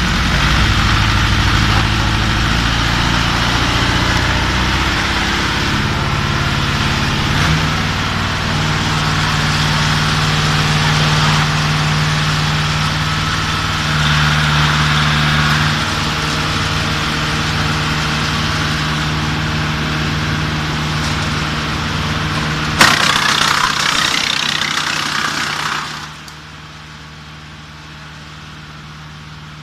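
Small wood chipper's 40 hp diesel engine running loudly, its speed shifting a few times, with a rough rushing noise above it. About 23 seconds in there is a sharp crack and a burst of rough grinding, then about three seconds later the sound drops to a much quieter steady running.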